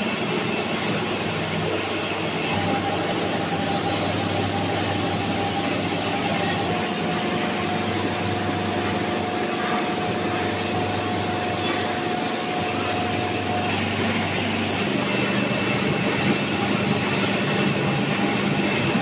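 Snack-food extrusion line running: a steady machine roar of motors and fans, with several held hum tones. The low hum shifts in pitch about three-quarters of the way through.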